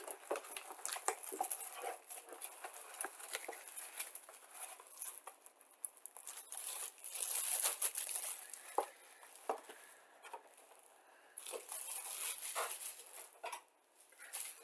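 Plastic shrink wrap on a cardboard model kit box crinkling and crackling as it is torn open and pulled off by hand, in irregular bursts that are loudest about halfway through and again near the end.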